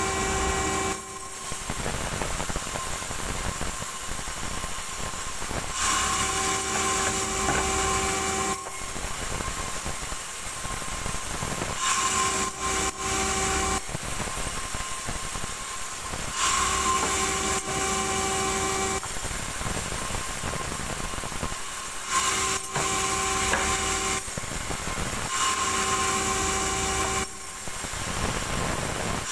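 Sawmill band saw running with a steady whine that breaks into the noise of the blade cutting wood each time a small log is pushed through. This happens about five or six times, each cut lasting two to five seconds.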